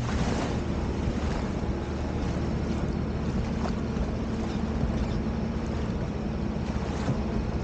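Sea-Doo jet ski engine running steadily at low trolling speed, with water and wind noise on the microphone.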